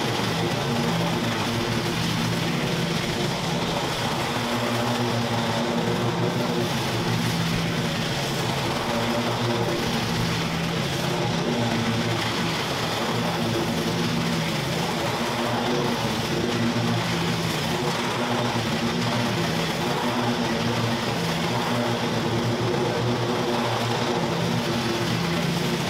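A small engine of lawn-care equipment running steadily at a constant speed.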